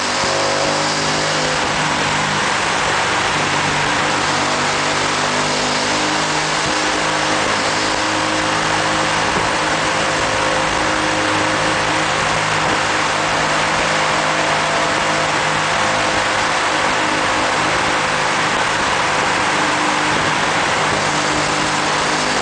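Kasinski Comet GTR motorcycle's V-twin engine running at fairly steady revs on the move, heard from the rider's seat. It is nearly buried under a loud, steady rush of wind and road noise inside a road tunnel.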